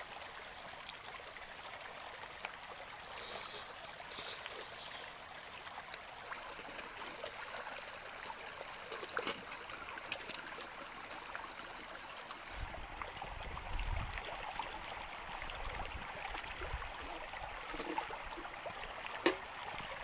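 Shallow mountain stream running over stones, a steady babble, with a few faint knocks and a brief low rumble about two-thirds of the way through.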